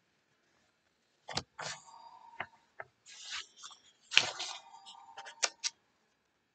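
Printed paper sheets rustling and being handled: several short bursts of crinkling with sharp taps, the loudest about four seconds in.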